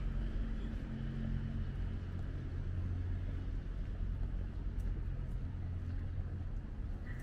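Steady low engine rumble with a faint hiss above it.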